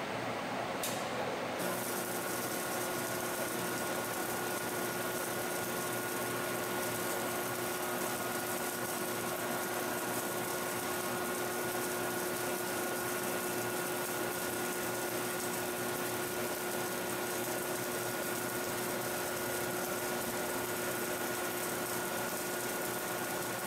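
Automatic seam-welding machine running steadily on a gas cylinder's circumferential seam, a constant mechanical hum with two steady tones, a low one and a higher whine, that sets in about two seconds in.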